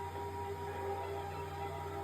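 Eerie, music-like sound effects with several held tones play from the Gemmy animated shark inflatable's built-in sound unit, over the steady low hum of its blower fan.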